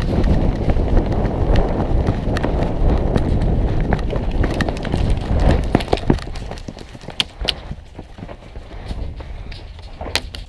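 Running footsteps on dry dirt with gear rattling and wind buffeting the head-mounted microphone for about six seconds. The running then stops and it goes quieter, with a few sharp clicks later on.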